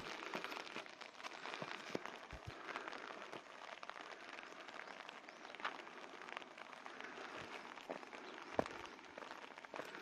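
Steady spring rain falling, a soft hiss with many small drop ticks; one sharper tick comes near the end.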